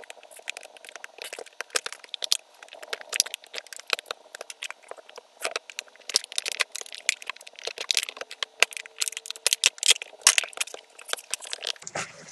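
Stiff plastic blister packaging crackling and popping as it is pried and twisted open by hand: a rapid, irregular run of sharp cracks that grows denser in the second half.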